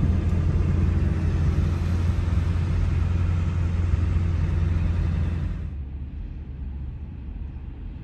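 Steady low rumble of a pickup truck driving, heard inside the cab: engine and road noise. About two thirds of the way through it drops to a quieter, duller rumble.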